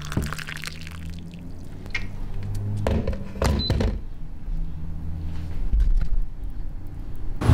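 Hot water poured from an electric kettle into a mug, then a couple of sharp thunks a few seconds in as the stainless steel kettle is set back down, over a low steady hum.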